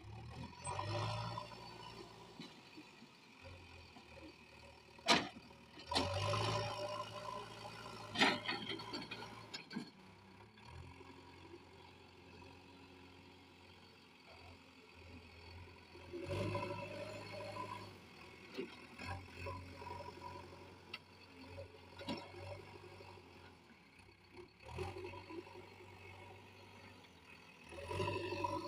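Diesel engine of a JCB 3DX backhoe loader at work, running steadily and rising several times as it takes load. Two sharp knocks come about five and eight seconds in.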